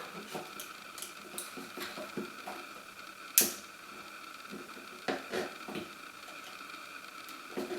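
Small plastic clicks and taps from the adjustable parts of a Cyborg R.A.T. MMO 7 gaming mouse being handled and locked, with one sharper click about three and a half seconds in and a few lighter ones a couple of seconds later.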